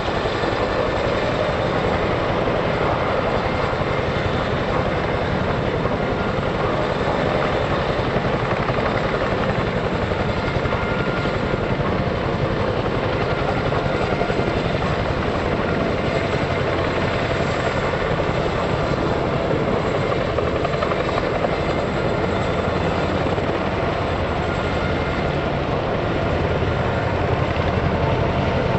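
Two UH-60 Black Hawk helicopters flying low with Humvees slung underneath, their rotors beating steadily under the external loads, growing slightly louder near the end.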